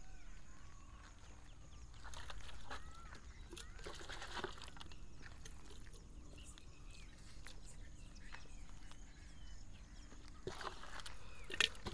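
Marinated chicken pieces being pushed by hand into a small clay pot, giving short knocks and handling noise, with a burst of clicks near the end. Birds call now and then in the background.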